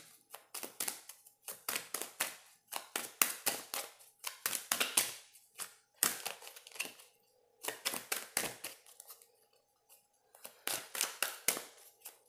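Oracle cards being shuffled and handled: quick runs of crisp card clicks and flicks in bursts with short pauses, and a longer pause about three-quarters of the way through. A faint steady hum sits underneath.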